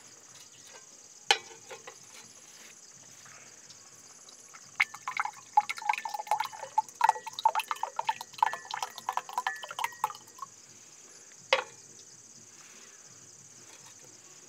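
Basil seed drink glugging out of a narrow-necked glass bottle into a glass mug for about five seconds, starting about a third of the way in. A sharp click comes about a second in and another near the end.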